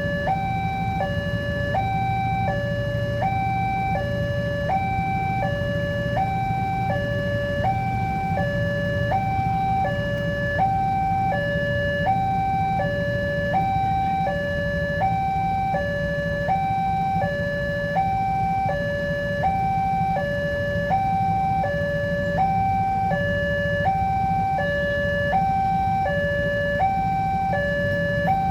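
Railroad level-crossing warning alarm sounding a continuous two-tone high-low pattern, each tone held about seven-tenths of a second, warning that a train is approaching and the barrier is closing or closed. A low steady hum runs underneath.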